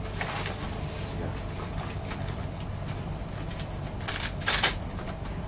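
Rustling and crinkling of a respirator fit-test hood being handled and adjusted at the neck, with one louder crinkle about four and a half seconds in, over a steady low hum.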